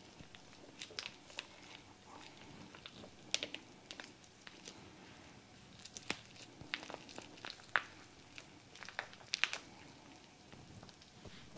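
Irregular small clicks and crackles of a plastic sausage wrapper being squeezed and handled as raw sausage is pushed out of it into a mixing bowl.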